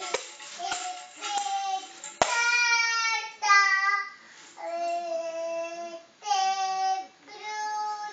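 A small child singing long held notes. Tambourine hits and jingles sound in the first couple of seconds, with one sharp hit about two seconds in; after that the singing goes on alone.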